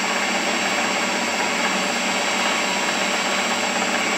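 Wood lathe running steadily, its motor giving a constant high whine over a broad machine hum.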